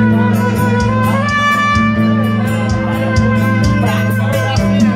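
Trumpet playing a melody of long held notes over a live backing band, with a steady bass line and a regular beat.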